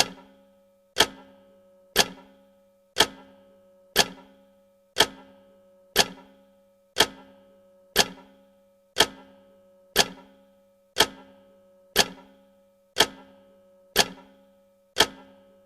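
Clock tick sound effect of a countdown timer: one sharp tick every second, evenly spaced, each with a short ringing tail, over a faint steady hum.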